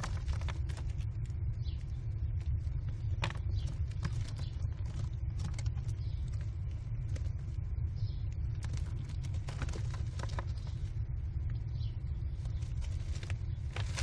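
Steady low rumble on the nest box microphone, with scattered scratches and taps as American kestrel nestlings scramble over the gravel floor and jostle one another with their wings.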